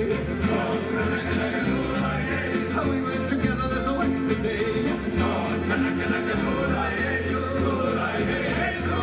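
Background music with singing and a steady beat.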